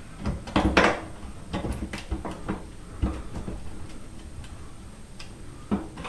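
Small metal bolts and hinge hardware clicking and knocking as they are handled and pushed into place by hand: a cluster of sharp clicks in the first second, then a few scattered ones.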